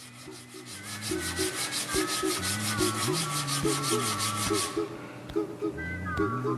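A wooden dowel being rubbed back and forth on a sheet of sandpaper to sand one side flat, in quick even strokes of about six a second that stop abruptly about two-thirds of the way through.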